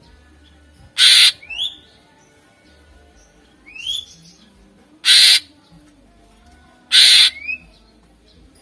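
Cucak ijo (green leafbird) giving three loud, harsh, rasping calls a few seconds apart, with short rising whistles between them.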